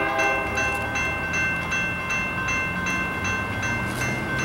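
Two electronic railroad-crossing bells, a Safetran and a General Signals Type-2 e-bell, ringing in a fast, steady, even dinging as the crossing signals activate. The approaching freight train's horn sounds during about the first second and a half.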